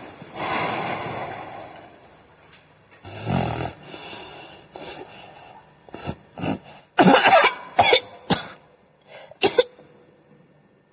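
A person coughing in several short, sharp fits, loudest in the second half.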